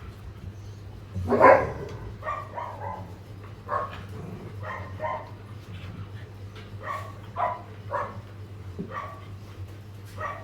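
Dogs barking and yipping in short calls. The loudest bark comes about a second and a half in, followed by about ten shorter barks spread unevenly through the rest.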